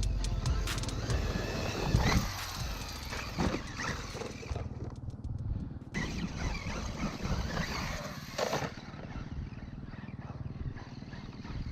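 Traxxas E-Revo 2.0 brushless RC truck driving on sand, its motor whining up and down in short rising sweeps, with a thump about two seconds in and another around eight and a half seconds.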